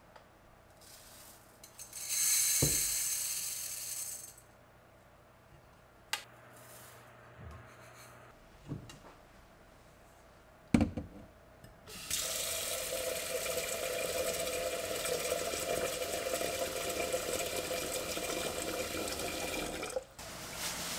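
Kitchen tap running into a stainless pot of rice in a stainless steel sink, filling it to rinse the rice. It runs steadily for about eight seconds and stops suddenly near the end. Before that comes a short gush of water about two seconds in and a few sharp knocks of the metal pot against the sink.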